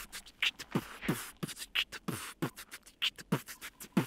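A man beatboxing a rhythm with his mouth: low kick-drum sounds that drop quickly in pitch, alternating with sharp snare and hi-hat clicks.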